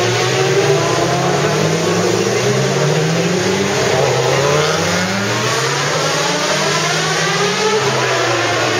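Several racing motorcycles accelerating out of a tight bend one after another, their engines overlapping, each rising in pitch and dropping back repeatedly as they change up through the gears.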